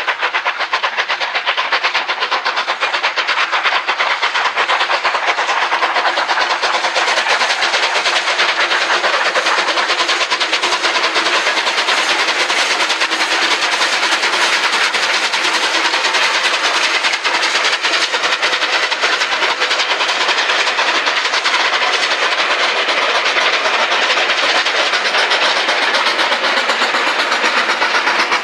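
Steam locomotive 34028 Eddystone, a rebuilt Bulleid West Country Pacific, passing with a train of coaches: a fast, continuous stream of exhaust beats mixed with the clatter of wheels over the rail joints, loud and steady.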